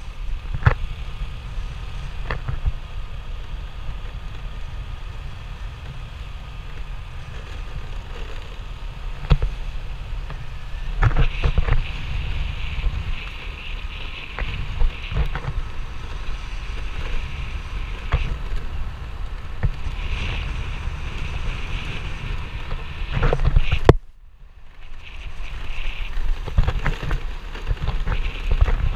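Wind buffeting the microphone of a camera on a moving scooter, a steady low rumble with scattered knocks. The rumble drops away suddenly for about a second near the end, then builds again.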